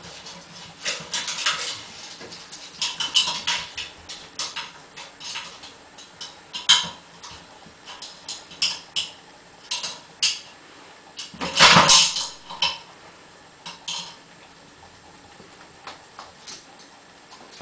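A Jack Russell terrier's claws and paws clicking and knocking on the metal rungs of an aluminium loft ladder as it climbs, in irregular taps, with the loudest clatter about twelve seconds in.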